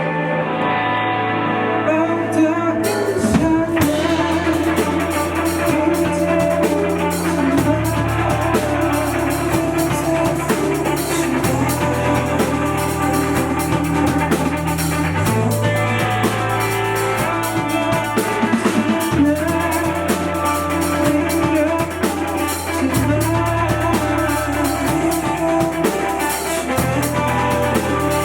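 A rock band playing live: guitar and bass over a drum kit that comes in about three seconds in, the bass line moving to a new note about every four seconds.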